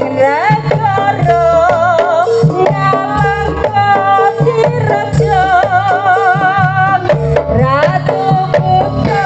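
Javanese jaranan/barongan ensemble music, played loud: kendang hand drums keep a repeating beat while a high melody line wavers with vibrato and slides up into its notes.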